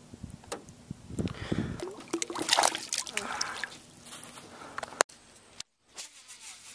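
Water splashing and trickling, loudest two to three seconds in, with scattered clicks of handling; it cuts off abruptly about five seconds in, leaving fainter lapping.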